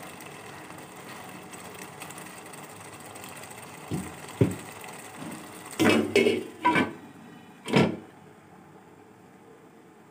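A pot of minced beef and peas simmering with a steady faint sizzle as it cooks down until the oil separates. Then several clinks and knocks as a glass lid is set onto the metal pot, the last one the loudest as it seats on the rim. After that the sound is quieter.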